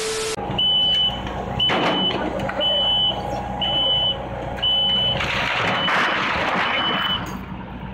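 Back-up alarm on a compact track loader beeping about once a second over the loader's diesel engine running steadily. It opens with a brief burst of TV-static noise and a steady tone.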